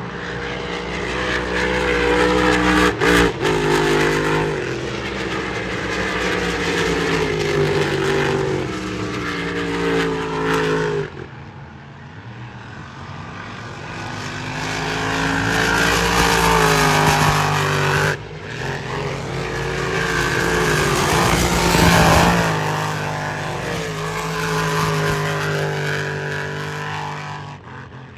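Racing powerboat engines running at high revs as the boats pass, the pitch sliding up and down. The sound drops away suddenly about eleven seconds in, builds again, and fades near the end.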